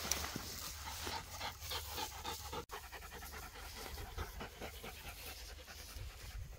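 Sighthound-type hunting dogs panting, in quick, even breaths.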